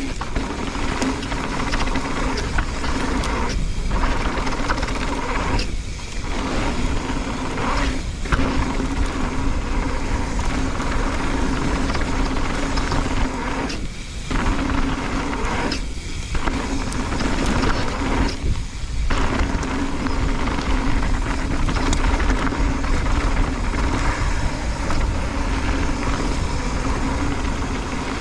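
Mountain bike rolling fast down a dirt and gravel trail, with steady wind rush on the microphone and tyre and bike rattle. The noise briefly drops away several times.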